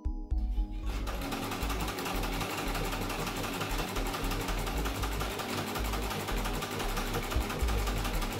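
Domestic electric sewing machine running steadily, stitching curtain fabric, its needle working in a fast, even rhythm. It starts up a little under a second in.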